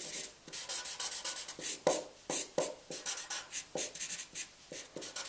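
Thick chisel-tip marker drawing on paper: a quick run of short, scratchy strokes, about three a second, filling in a solid dark shape.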